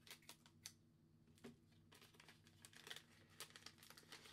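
Wrapper of a hockey trading-card pack being torn open and handled: faint crinkling with a scatter of small ticks.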